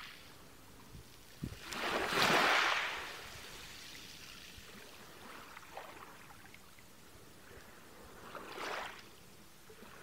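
Small waves washing onto a rocky shore: a loud wash about two seconds in and a smaller one near the end, with a low steady water hiss between.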